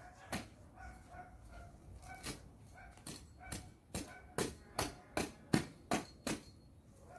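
Long-handled lawn edger chopping into the turf along a bed edge: a series of sharp strikes that quicken to two or three a second in the second half. Faint animal calls sound between the strikes.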